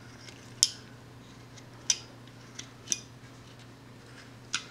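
Carving knife slicing chips off a wooden rough-out: about five short, sharp snicks, the loudest a little over half a second in.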